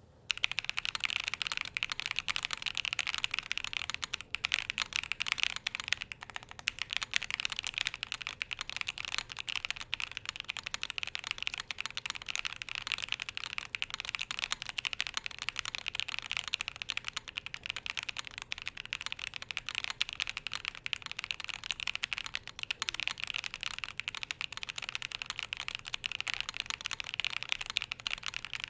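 Tenet70 custom mechanical keyboard with SOTC switches on a polycarbonate plate, dampened with plate silicone and case foam, typed on steadily: a dense, fast stream of key clacks, with a short lull about four seconds in.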